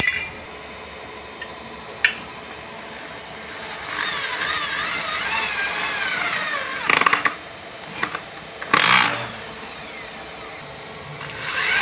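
Corded electric drill running and boring screw holes into aluminium box section, its motor whine rising and falling as the trigger speed changes. Two loud sharp noises break in partway through.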